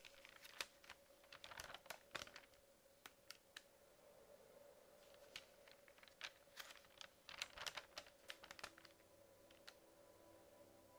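Magazine pages being turned and handled, crisp paper crackles and rustles coming in clusters with short pauses between, over a faint steady hum.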